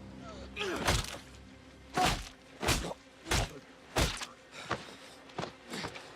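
A series of heavy thudding blows, about one every two-thirds of a second, over faint sustained background music.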